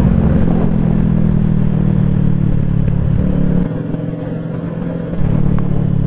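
Kawasaki Z650 parallel-twin engine running steadily under way. The sound drops quieter for about a second and a half past the middle, then comes back.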